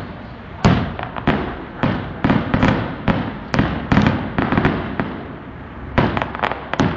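Fireworks going off: a run of sharp bangs at irregular intervals, each trailing off in an echo, with a quicker cluster of bangs near the end.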